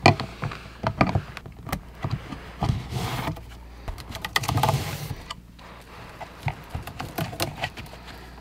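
Handling noise from pushing yellow Romex cable into a plastic electrical box: scattered clicks and knocks with short stretches of paper-faced insulation rustling. Near the end, a screwdriver works inside the box.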